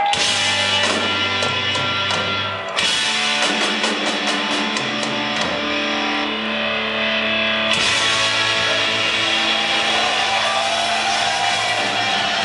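Live hard rock band playing electric guitars, bass guitar and drum kit through a PA in a large hall. Long held, ringing chords change a few seconds in and again past halfway.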